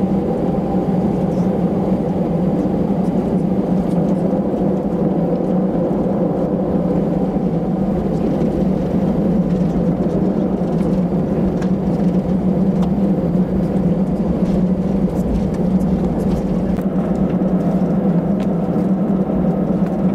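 Steady cabin noise of an Airbus A319 taxiing, heard from a window seat: an even hum of the jet engines at taxi power.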